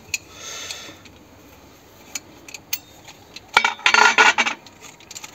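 Steel hand tools clinking on a truck engine: a home-welded L-shaped wrench is fitted onto a thread tap. A short scrape and a few light ticks, then a brief clatter of ringing metal-on-metal knocks about four seconds in.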